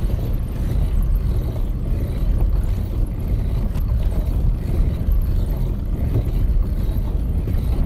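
Steady low rumble of wind buffeting the microphone on a moving bicycle, mixed with the bicycle's tyres rolling over cracked asphalt.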